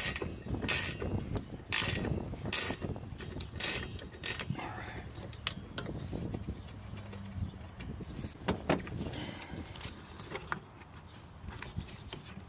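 Ratchet wrench clicking and metal parts clacking as the nut on a Chevy S10's new wiper arm is run onto the pivot and left loose. The louder clacks come about once a second early on, then lighter scattered clicks follow.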